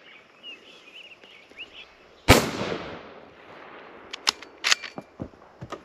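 A single unsuppressed rifle shot from a .17 Hornet: one sharp crack about two seconds in, with an echoing tail that dies away within a second. A few light clicks follow near the end.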